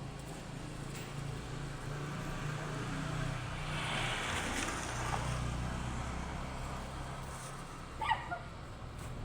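A steady low motor hum, with a short pitched call about eight seconds in.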